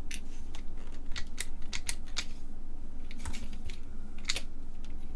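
Light, irregular clicking and tapping, about a dozen sharp clicks, from small integrated-circuit chips and a small hand tool being handled on the bench.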